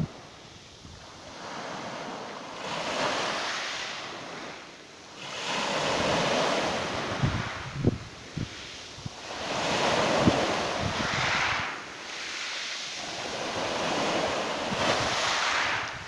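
Small sea waves breaking on a pebble beach and washing back, the surf swelling and fading about four times, a few seconds apart.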